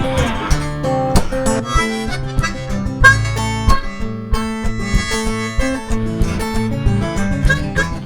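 Instrumental break: harmonica playing the melody over strummed acoustic strings, with a sharp percussive beat landing about once a second.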